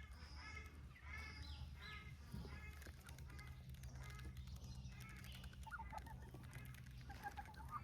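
Farm poultry calling: a run of repeated honking calls, about two a second, for the first three seconds, then a few fainter, scattered calls later on.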